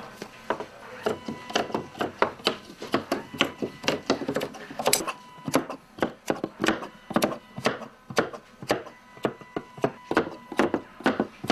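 Scissors snipping through camouflage netting while a piece is cut out, a quick, uneven run of sharp snips about three a second.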